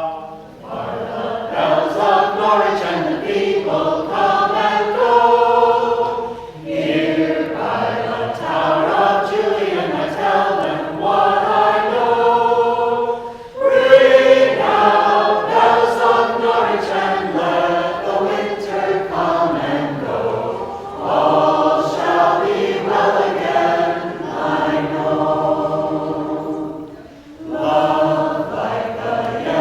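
A vocal group singing a song together in a choir, starting right at the beginning, in phrases of about seven seconds with short pauses between them.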